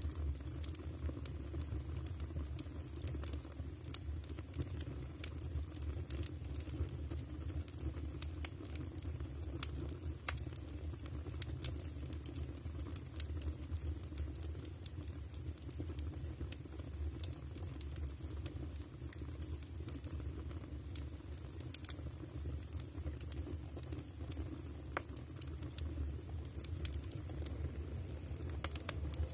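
Firewood crackling in a stove: irregular sharp snaps and pops over a steady low rumble.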